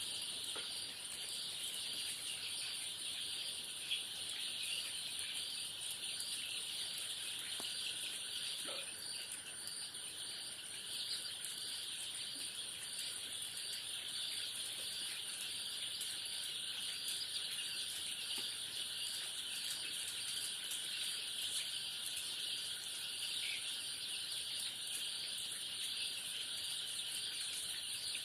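Many baby chicks peeping together in a dense, steady chorus, with a thin high-pitched whine running above it.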